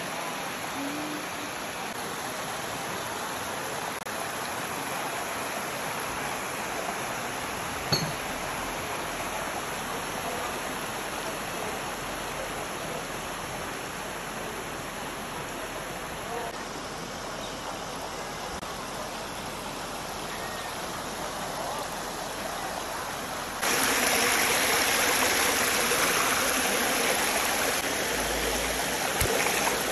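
Shallow stream rushing over flat sandstone ledges: a steady rush of water. One sharp click about eight seconds in. For the last few seconds the rush is louder and nearer, close over the current.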